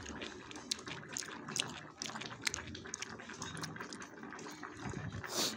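Hotpot broth bubbling at a boil, with many small pops and ticks and one louder, sharper burst near the end.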